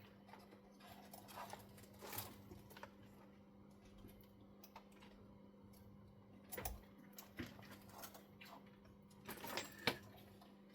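Small scattered clicks and taps of screws, an Allen key and hard plastic and metal parts being handled while an RC truck's equipment rack is screwed on, loudest near the end, over a faint steady hum.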